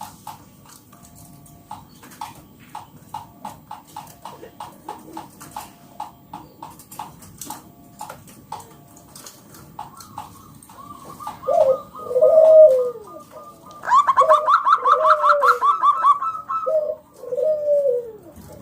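Zebra dove (perkutut) calling: first a long run of quick, soft, evenly spaced short notes, then from about eleven seconds in, louder rolling coos with a rapid higher trill over them for a couple of seconds.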